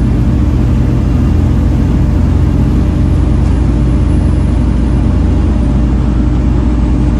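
Volvo B7TL bus's six-cylinder diesel engine running steadily under way, heard on board, with a faint high whine that drifts up and slowly back down.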